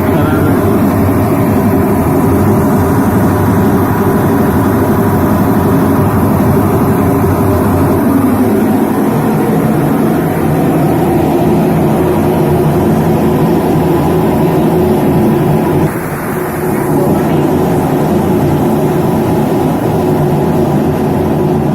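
Whirlpool White Magic F65 washing machine running in spin mode, a loud steady motor hum and drone that shifts in tone about 9 s in and dips briefly about 16 s in. The machine is struggling to spin because water has leaked into its gearbox and bearing, which are jamming.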